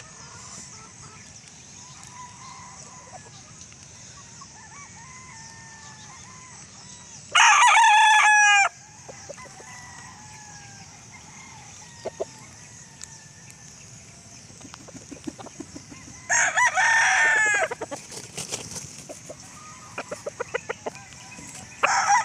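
Roosters crowing three times, each crow loud and about a second long, spaced roughly eight seconds apart, the last starting near the end. A steady high hiss runs underneath, with short clucks or clicks between the second and third crows.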